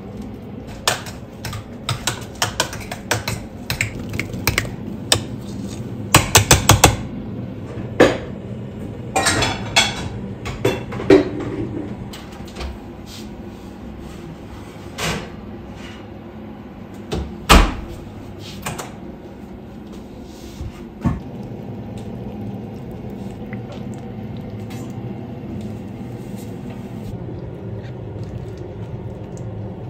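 Cookware and utensils being handled: a run of clinks and knocks, with a dense clatter about six seconds in and a few single knocks later on. A steady low hum runs underneath.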